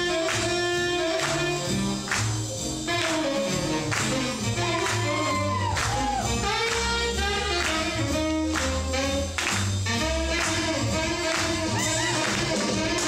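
Swing music: a singer over a band with a steady beat.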